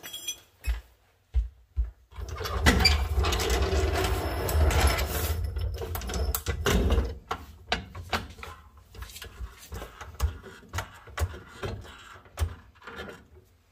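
Steel floor jack rolled across a concrete floor, loudly, for about five seconds. From about seven seconds in come a string of clicks and knocks as it is pumped, lifting the car's lower control arm and compressing the new air bag.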